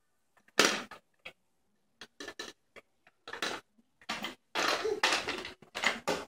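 Plastic baby toys being knocked and handled: scattered clicks and clattering knocks with short rustles, a louder bump about half a second in and a busier stretch of clatter near the end.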